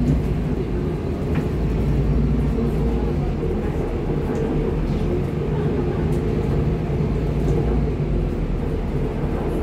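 ADL Enviro 400 double-decker bus's engine and automatic gearbox running as the bus drives, heard inside on the top deck at the rear. It is a deep, steady drone whose note changes a few times as the revs rise and fall through the gears.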